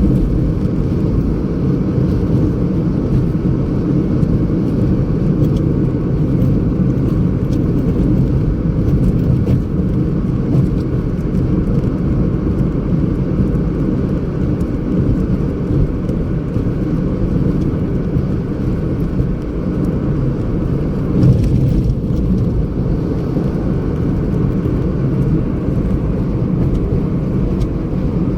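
Steady low rumble of a car driving, with road and engine noise throughout.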